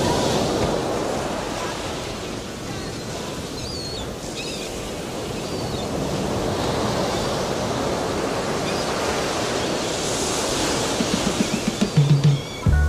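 Recorded ocean surf from a relaxation recording: waves washing in and easing off as a steady hiss, with a few faint high chirps. Near the end, reggae bass and drums start to come in.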